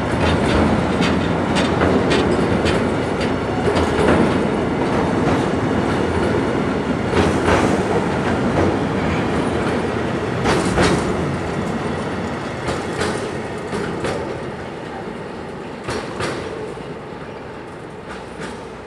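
Freight train wagons rolling past, their wheels clacking over rail joints, with the rolling noise slowly fading over the last several seconds.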